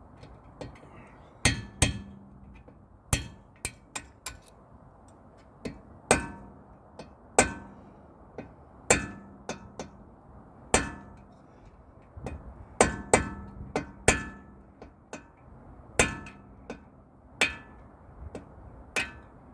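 Hammer striking metal on the brake caliper during a front brake pad change. The blows are irregular, about one a second, some in quick pairs or clusters, and each rings briefly.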